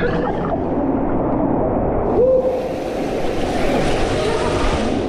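Stream water splashing and rushing around a camera held at the water's surface while wading through a river cave; from about two seconds in the water turns to a louder, hissing rush.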